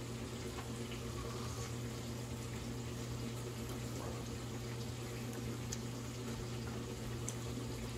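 Breaded white bass frying in oil in a pan, a steady faint sizzle, over a steady low hum.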